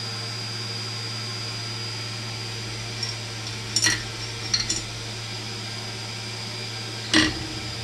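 Solder fume extractor fan running with a steady hum, with a few short sharp clicks about four seconds in and a louder one near the end.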